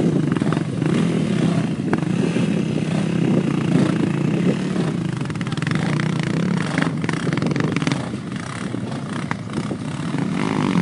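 ATV engine running, its loudness rising and falling, with a lull about eight seconds in.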